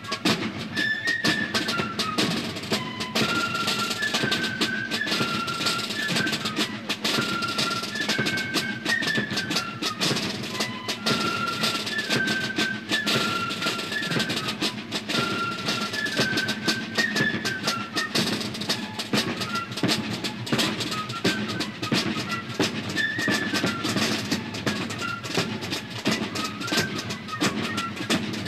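Fife-and-drum band marching: snare drums play fast, continuous rudiments and rolls under a bass drum while a fife plays a high, stepwise melody.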